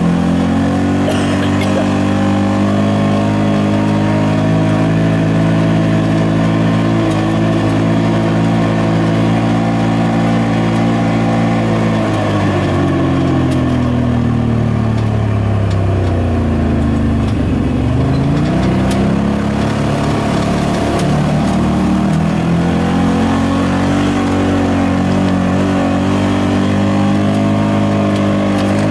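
Side-by-side UTV engine running steadily at trail speed. About halfway through, the engine speed drops as the machine slows, then revs back up to the same steady pitch.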